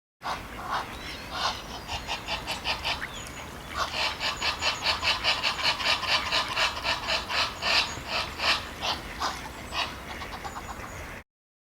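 Ducks quacking: a long run of short, repeated quacks, coming fastest and loudest in the middle, about three or four a second.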